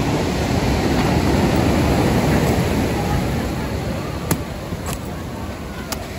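Sea surf breaking and washing up a sandy beach, with wind rumbling on the microphone. A few sharp clicks come in the second half.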